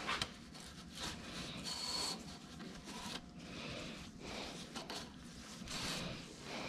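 Irregular rubbing and scraping handling sounds with a few light clicks, with a brief thin high ring about two seconds in.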